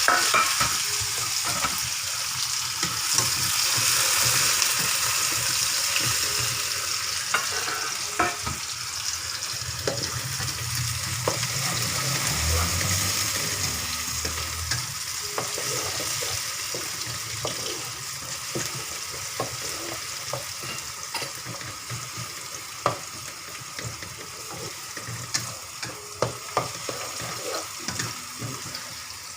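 Garlic and onion sizzling in hot oil and being stirred in the pan, with scrapes and knocks of the spatula. The sizzle is loudest at first and slowly dies down, while the sharp spatula knocks come more often near the end.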